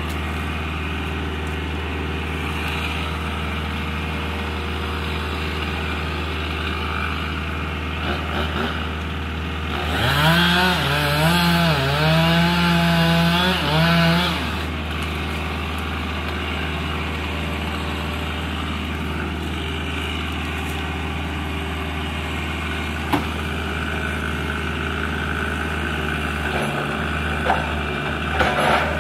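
An engine runs steadily at a low hum. From about ten to fourteen seconds in, a louder pitched engine sound revs up and down several times, as a machine strains to bring down a stubborn tree.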